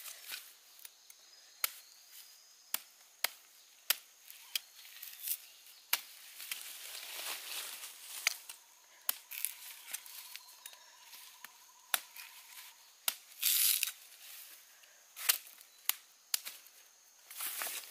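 Sharp chopping strikes, one every second or so, with bursts of rustling in between.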